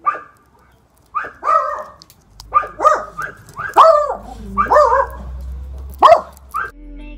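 Small dog barking, about a dozen short high yaps in quick runs, with a low steady hum underneath from about two seconds in.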